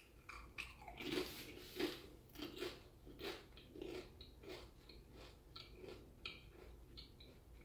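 A man biting and chewing a crunchy tortilla chip with his mouth closed: a run of soft crunches, about one or two a second, growing fainter toward the end.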